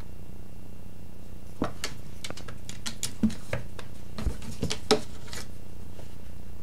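A cat playing with a dangling fluffy wand toy under rattan furniture makes a scatter of about a dozen light clicks and knocks as it bats at the toy and bumps the rattan frame. They start about a second and a half in and stop a little after five seconds, with the loudest knocks near the middle.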